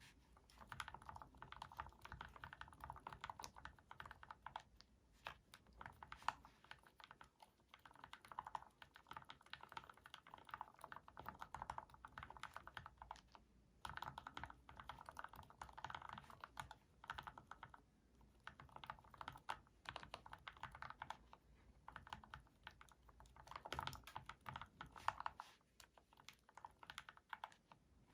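Mechanical keyboard with H1 switches in a full-aluminium case being typed on: runs of quick keystrokes broken by short pauses. The switches are lubed with Krytox 106 and the springs with Krytox 105.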